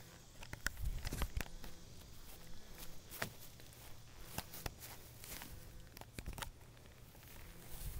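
Handling noise from a handheld video camera as it is picked up and carried, with irregular knocks and rubbing, a cluster of low thumps about a second in, and scattered footsteps on grass.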